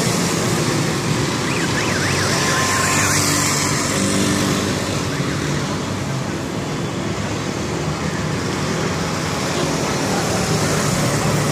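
Steady city road traffic, with motorcycles and cars passing close by and their engines running. About a second and a half in, a fast warbling high tone sounds for around two seconds.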